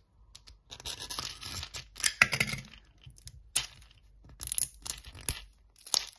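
Plastic film wrap on a toy capsule ball being peeled and torn open by hand: irregular crinkling and tearing with sharp crackles, loudest about two seconds in.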